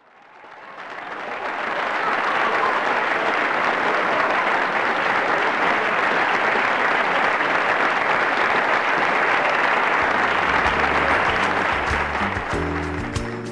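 Crowd applause fading in over about two seconds and holding steady; music with a stepping bass line comes in underneath about ten seconds in.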